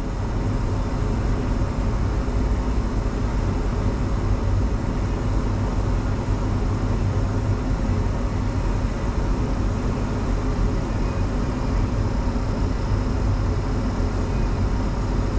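A long train rolling through a railroad crossing, a steady, even rumble heard from inside an idling vehicle's cab, with no horn or sharp clanks standing out.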